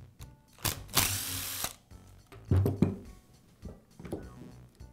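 Makita cordless driver whirring for under a second as it backs out a screw from the shear's metal gearbox housing. Handling knocks and clatters of the screw and the metal housing follow.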